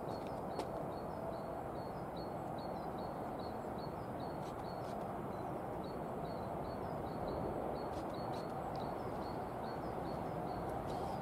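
A small bird calling a short, high chirp over and over, about two or three times a second, over a steady low background rumble.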